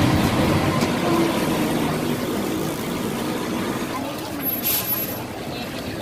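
Street traffic rumbling past a roadside market stall, with people talking nearby. A short high hiss comes about three-quarters through.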